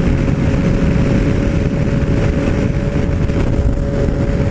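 Yamaha MT-09 Tracer's three-cylinder engine pulling steadily in sixth gear at about 140 km/h; its note holds one even pitch under heavy wind and road rush.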